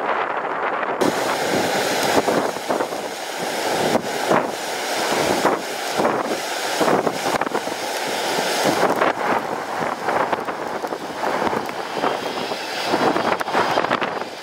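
Strong gusty wind buffeting the microphone over the jet engines of an airliner coming in to land, with a faint jet whine in the last few seconds.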